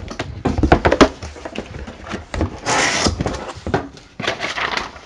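Cardboard packaging being handled: a quick run of knocks and taps as box flaps and inserts are moved, then a scraping rustle of cardboard sliding about three seconds in and a shorter one near the end.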